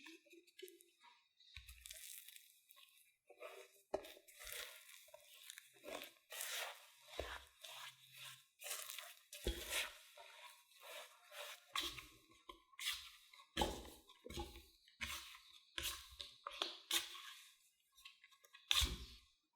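Potato mixture being worked by hand or utensil: irregular crunching and squishing, in clusters with occasional soft thumps.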